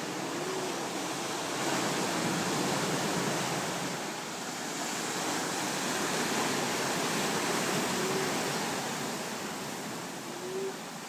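Sea waves washing on a shore: a steady rush of surf that swells and eases every few seconds.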